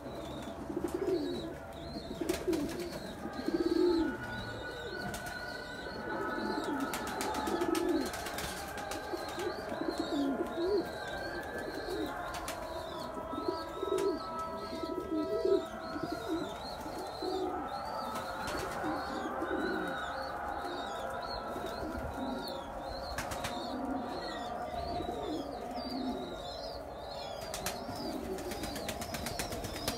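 Flock of domestic pigeons cooing, many short low coos overlapping, with a steady run of high, quick chirps from another bird above them and a few light clicks.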